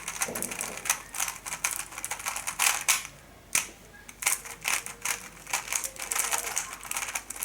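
A 3x3 Rubik's cube being scrambled: rapid, irregular clicking and clacking of its plastic layers being turned.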